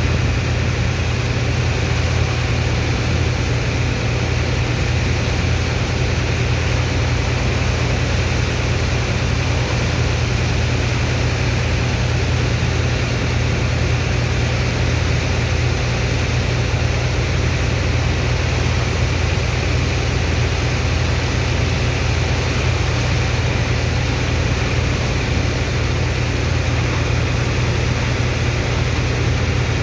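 The engine of a sand dredger's water pump running steadily at a constant speed, a deep hum with an even rushing noise over it.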